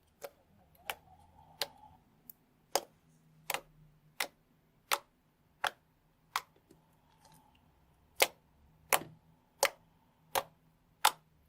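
Orbeez slime being handled, giving sharp clicking pops at a steady pace of a little over one a second, with a short pause about seven seconds in.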